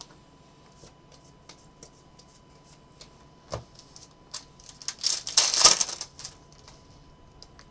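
Trading cards clicking and tapping as they are flipped through and squared into stacks, with a louder knock about three and a half seconds in. About five seconds in, a foil card pack is torn open and crinkles for about a second.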